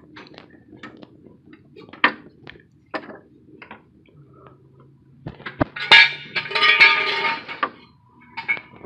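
Metal tools and parts clinking and knocking together in scattered single taps, with a louder burst of ringing metallic clatter about six seconds in.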